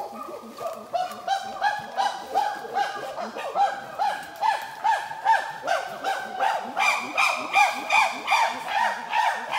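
Wild chimpanzees calling together in a pant-hoot chorus: a fast, even run of hoots, about two to three a second, growing louder and higher in pitch, with higher, screaming calls joining about seven seconds in.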